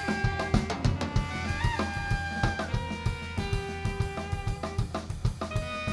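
Live jazz ensemble playing, with the drum kit prominent: snare and bass drum hits throughout under held melody notes that shift pitch every second or so.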